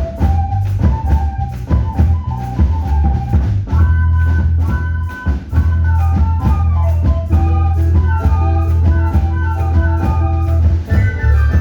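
Instrumental ensemble music: a melody line over a sustained low bass and a steady percussion beat.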